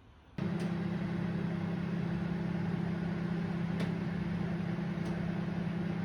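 Oven switched on and running with a steady electrical hum, starting abruptly, with a few faint ticks.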